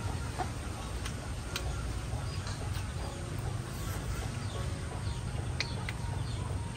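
A person eating at the table: a few sharp light clicks, such as chopsticks or a spoon on a dish, over a steady low hum, with faint bird chirps in the background.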